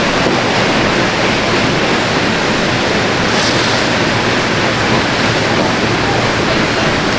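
Air bike fans spinning hard in a sprint: a loud, steady rush of air.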